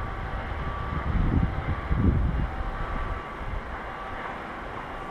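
Wind buffeting the microphone in gusts, strongest about a second and two seconds in and easing after that, over a faint steady hum with a thin high tone that comes and goes.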